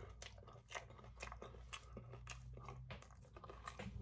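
A man chewing a big mouthful of fried pie and Cornetto ice cream cone with his mouth closed: faint, irregular crunching and mouth sounds.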